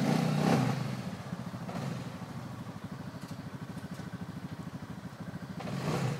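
CF Moto 500 quad's single-cylinder engine idling with a steady pulsing beat, revved briefly at the start and again near the end.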